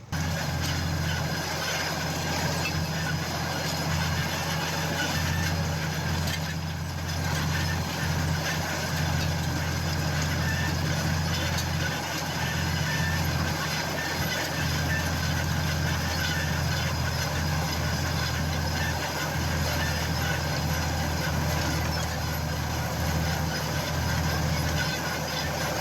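Farm tractor engine running at a steady speed while pulling a no-till grain drill. The engine drones low and even under a steady mechanical rattle.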